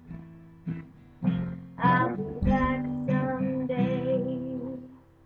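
Acoustic guitar strumming the closing chords of a song, the strums dying away near the end.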